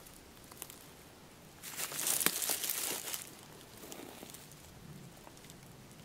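Fabric and backpack rustling close by as people move through forest undergrowth: a burst of crinkling noise about two seconds in that lasts a second and a half, with scattered small clicks around it.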